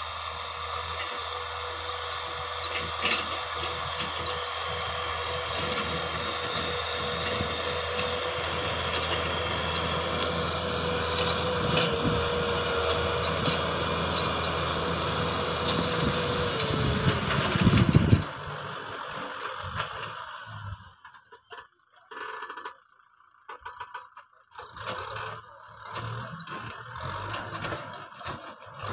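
Kubota M6040 tractor's diesel engine running as it pulls a disc plough through the soil. A steady whine drops sharply in pitch about seventeen seconds in, and after that the sound comes and goes.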